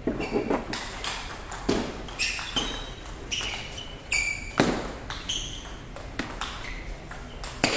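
Table tennis rallies: the ball clicking off the rubber-faced paddles and bouncing on the tables in an irregular run of sharp clicks, about two a second, some with a short high ring.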